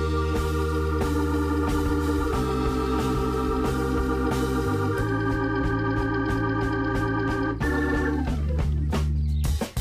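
Background music: long held keyboard chords over a steady bass, changing chord a few times, then sliding down in pitch and fading out near the end.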